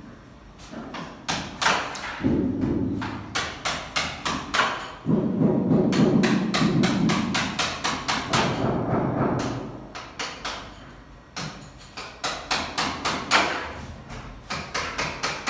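Repeated knocking and thudding on wooden cabinet panels, in quick runs of taps with short pauses, as the cabinets are fitted together.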